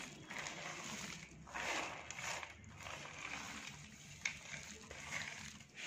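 Chopped dry fruits, mostly sliced almonds, sliding off a board and dropping onto a pan of ghee-roasted moong dal: a noisy, hiss-like spill in several pushes of a second or so each, with a sharp tap a little over four seconds in.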